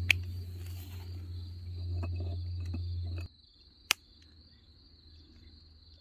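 Crickets chirping as a steady high drone over a low hum that cuts off about three seconds in. A little after, a single sharp tap as one red-dyed egg is knocked against another.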